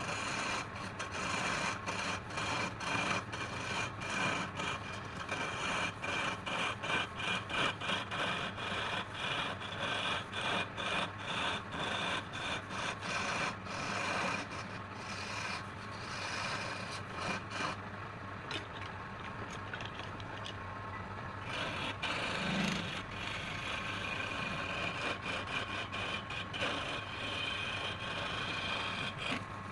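Wood being rubbed or rasped in quick back-and-forth strokes, about two a second, over a steady low motor hum; near the middle the strokes blur into a more continuous rubbing.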